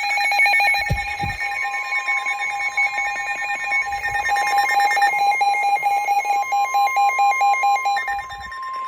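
Several NOAA weather radios alerting at once: fast pulsing electronic beeps layered over the steady NOAA warning alarm tone that precedes a severe thunderstorm warning broadcast. The pulsing beeps stop near the end, leaving the steady tone alone.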